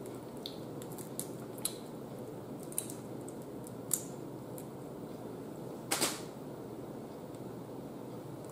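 Boiled shrimp being peeled by hand: scattered small clicks and crackles of the shell coming away, the loudest a double crackle about six seconds in, over a steady faint hiss.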